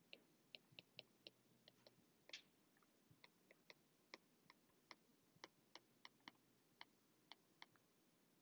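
Faint, irregular light ticks of a stylus tip tapping on a tablet screen during handwriting, about two or three a second, with one longer scratchy stroke a couple of seconds in.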